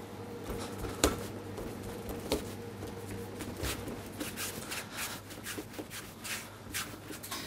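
Hands rolling and patting strands of brioche dough on a wooden worktop: soft rubbing and scattered light taps, with a steady faint hum behind.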